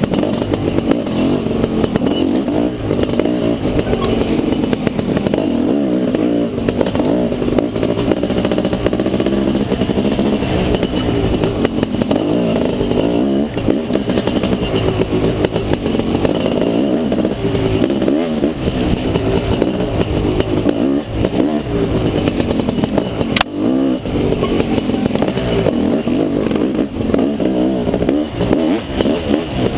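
Dirt bike engine being ridden hard, its pitch rising and falling continuously as the rider works the throttle. A single sharp knock comes about three-quarters of the way through.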